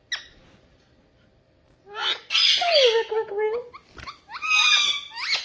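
Pet parrot squawking: two loud, harsh calls, the first about two seconds in and the second near the end.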